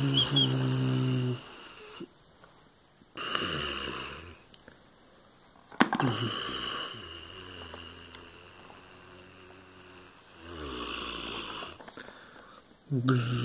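A person imitating a tractor engine with a low, throaty rumble, starting and stopping several times. A sharp plastic knock about six seconds in as the toy dump trailer tips its balls out.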